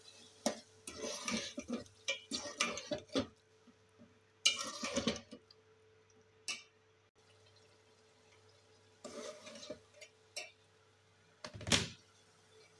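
A metal spoon stirring and scraping against a metal pot of chickpeas in curry, mixing in yogurt and onion paste. It comes in irregular bursts of scrapes and clinks with a pause in the middle, and the sharpest knock comes near the end.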